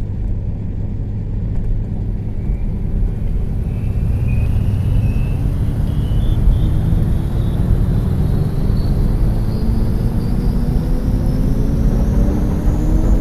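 A motor vehicle picking up speed, with a low rumble underneath. Its engine note and a high whine rise smoothly and steadily in pitch without a break.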